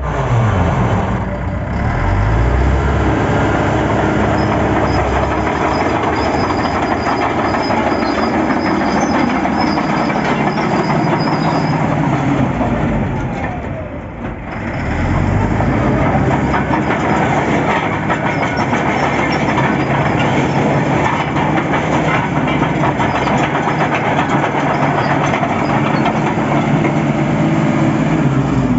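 Caterpillar D5H bulldozer's diesel engine running under load, its pitch dropping and climbing again about a second in and again about halfway through.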